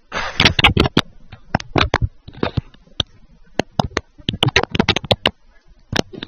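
An irregular run of short sharp clicks and knocks, fairly loud, with a couple of brief lulls.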